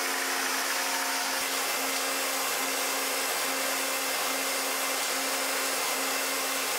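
Microweily metal lathe running steadily while its tool cuts a new hydraulic cylinder gland from a large round blank. It gives an even hiss with a low hum under it.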